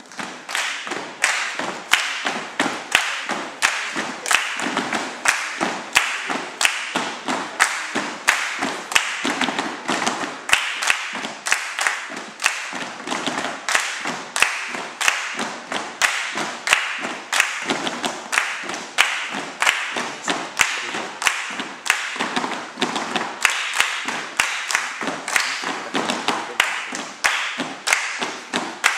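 A group of children doing body percussion together: rhythmic hand claps mixed with thumps, in a steady beat of about two strong strokes a second with lighter ones in between.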